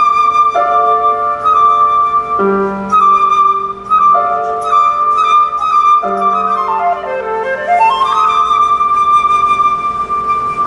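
Solo flute playing a high, bird-like line of held, trilled notes, with a quick run down and back up about seven to eight seconds in, over sustained lower accompaniment.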